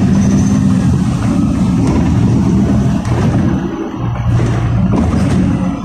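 Inside a LiAZ 5292.67 city bus under way: its YaMZ-53624 compressed-natural-gas engine running with a steady low drone, which shifts in pitch about four seconds in.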